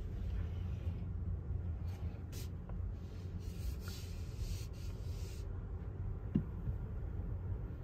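Low, steady rumble inside a car cabin as the car moves off slowly, with a soft rustle for a few seconds in the middle.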